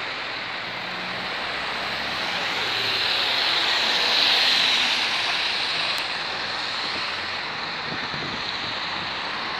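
Single-deck bus driving past close by on a wet road: engine and tyre hiss swell to a peak about four seconds in, then fade, with other traffic going by.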